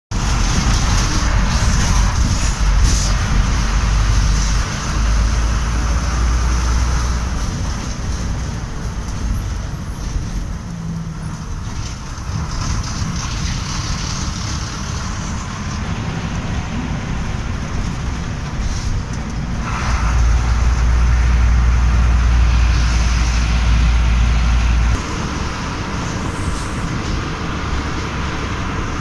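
Road vehicle on the move: continuous engine and road noise with a heavy low rumble, louder for the first few seconds and again for several seconds about two-thirds of the way through.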